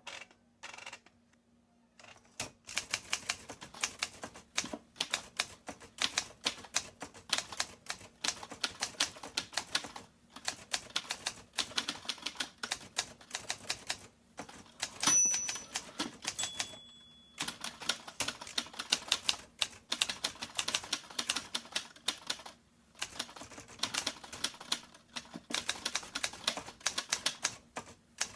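Typewriter typing: rapid runs of sharp keystroke clacks with short pauses between them and a brief ring about halfway through.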